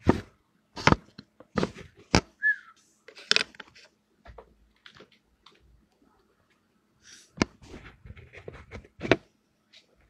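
Handling noise of a phone held close to its microphone: about seven sharp knocks and taps from fingers gripping and tapping the phone, spread unevenly. A brief high, falling chirp sounds about two and a half seconds in.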